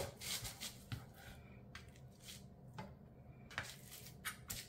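A chef's knife slicing through raw roast beef on a plastic cutting board: irregular soft taps and scrapes as the blade draws through the meat and meets the board, with quiet squishing as the wet meat is handled.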